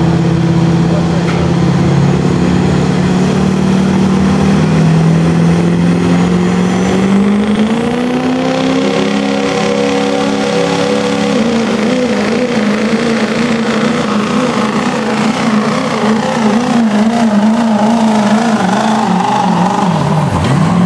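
Turbocharged diesel pickup engine under full load, pulling a weight-transfer sled. It holds a steady pitch, rises about seven seconds in, then wavers up and down from about twelve seconds, and drops off sharply near the end.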